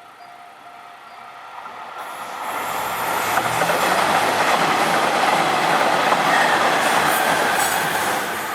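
A train passing over a JR Kyoto Line level crossing: rail and wheel noise swells from about two seconds in, holds loud for several seconds, then starts to fade near the end. At the start, a level-crossing warning bell rings in an even, quick repeat.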